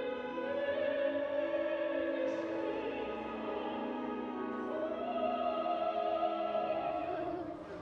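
Operatic singing over orchestral accompaniment: a voice holds two long notes, one early and one in the second half.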